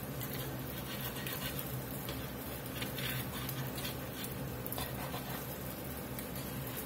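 Thick gravy simmering in a cast-iron skillet with a steady crackling bubble, and a metal fork scraping the pan a few times as beef patties are turned over in it.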